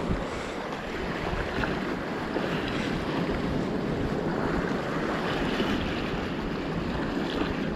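Seawater washing and sloshing among concrete tetrapods at the foot of a breakwater, as a steady wash, with wind buffeting the microphone.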